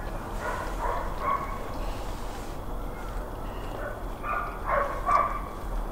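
A dog barking in two short runs of about three barks each, one near the start and one about four seconds in.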